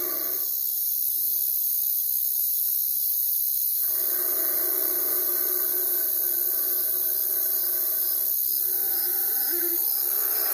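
Owl sound-effect recording: a steady pitched call held for about four seconds, with a gap of silence in the calling before it and a break after it, over a constant high hiss.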